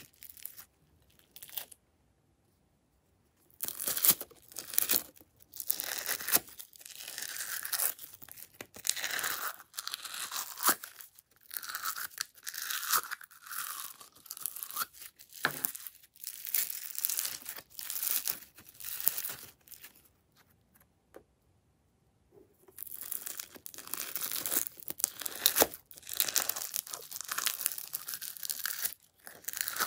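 Foam-bead slime (floam) squeezed and pulled by hand, a crackling of many small clicks in uneven bursts as the beads rub and press together. It pauses twice, about two seconds in and about two-thirds of the way through, for a second or two each time.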